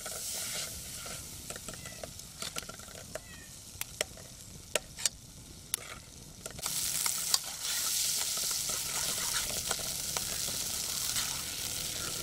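Butter sizzling as it melts in a metal frying pan over a wood fire, with a metal spoon stirring, clicking and scraping against the pan. The sizzle grows louder about halfway through.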